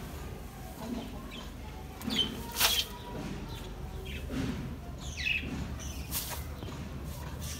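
Dry wheat-straw chaff being tipped into a metal tub, rustling in short bursts, the loudest about two and a half seconds in. A few short chicken calls sound over it.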